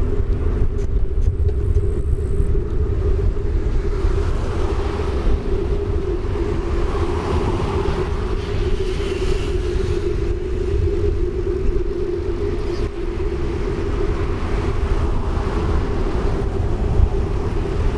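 Bicycle rolling along an asphalt path: a steady hum and rumble from the treaded front tyre on the asphalt, with cars passing on the road alongside.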